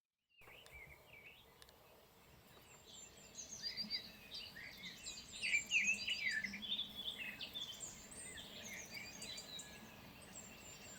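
Songbirds singing and calling, several overlapping, sparse at first and growing busier about three seconds in.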